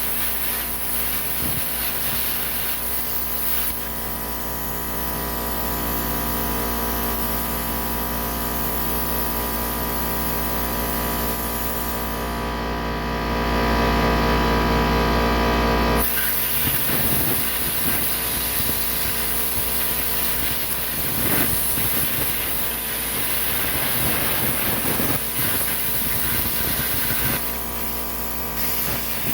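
Plasma cutter hissing with air and arc as it cuts metal, over a steady machine hum. The hiss swells louder about halfway through and breaks off suddenly, after which the sound turns rougher and more uneven.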